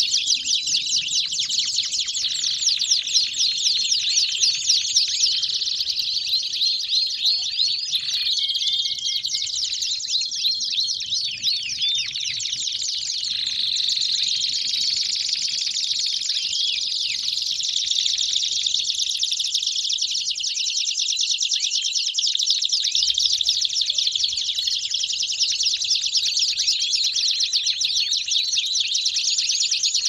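Several domestic canaries singing together in a continuous chorus of fast, high trills and rolls.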